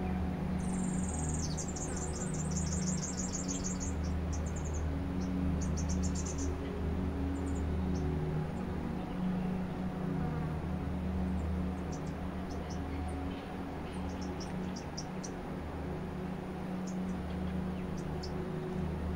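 Ambient drone music: low, sustained synthesizer tones that shift slowly. Over it, a rapid trill of high chirps runs for a few seconds near the start, with scattered short high chirps later on.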